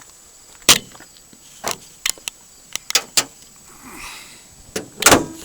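Ford Escort's hood slammed shut with one sharp, loud bang about a second in, followed by several lighter knocks and clicks and another thud near the end.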